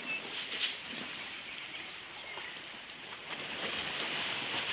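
Elephants splashing and sloshing in a muddy waterhole, over wind on the microphone that grows stronger in the second half. A few short bird calls come through at the start and again midway.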